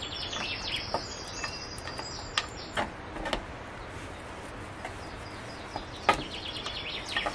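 Small birds chirping and twittering, with a few short knocks and pats from hands kneading dough in a wooden bowl, the loudest about six seconds in.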